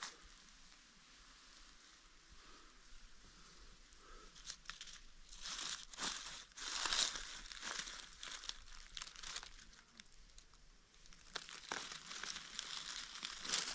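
Dry fallen leaves crackling and rustling in irregular bursts as they are stepped through and then brushed aside by hand. The loudest bursts come about six to seven seconds in, after a quiet start.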